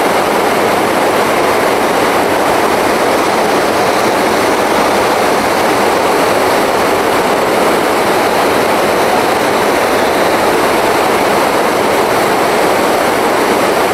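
Steady rushing of a fast river flowing over rapids and rocks.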